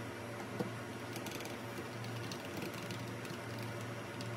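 A NuPhy Air60 v2 low-profile mechanical keyboard is set down on a desk with one knock about half a second in. Its keys are then tapped in a run of short, light clicks, over a steady low hum.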